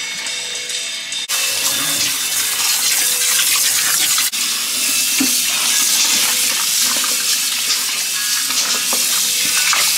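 Broth being poured off a pot into a stainless steel sink, then, after about a second, a kitchen tap running hard onto boiled soup bones in the pot, rinsing them.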